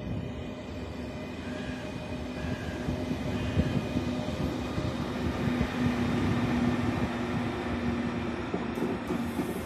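ÖBB Railjet passenger train leaving the station: coaches rolling past with wheels rumbling on the rails and a steady hum, louder in the second half as the Class 1116 Taurus electric locomotive at the rear comes by.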